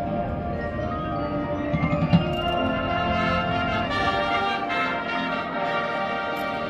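Marching band playing a held, chordal passage, with mallet percussion ringing over the brass. A short flurry of low drum hits comes about two seconds in.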